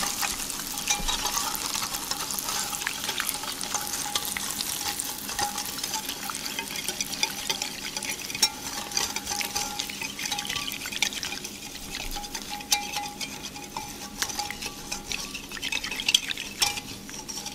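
Wire whisk stirring hot oil into ground dried chilies and spices in a glass measuring cup: rapid, irregular clicks of the metal tines against the glass over a sizzling hiss from the hot oil on the spices, which thins out toward the end.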